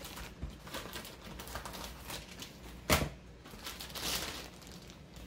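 Plastic vacuum-packing around a pet bed being handled, crinkling and rustling, with one sharp snap about three seconds in.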